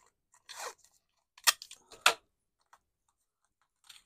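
Card and low-tack tape crackling and rustling as small cutting dies are handled and taped down onto white card stock. There are short irregular crackles, loudest in two sharp snaps about half a second apart.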